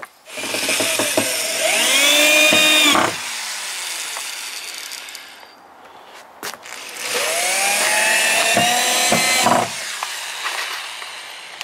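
Power drill driving deck screws into a deck board: the motor whines, its pitch rising and then dipping under load, in two runs, one at the start and a second about seven seconds in.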